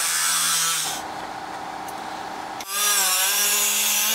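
Air-powered cut-off wheel cutting the sheet-steel transmission tunnel, a loud high whine with grinding. It eases off for nearly two seconds about a second in, then bites into the metal again.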